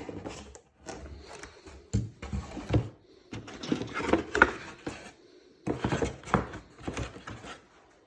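Handling noise of a rifle box and its packaging being opened: irregular rustling and knocks, in several bursts.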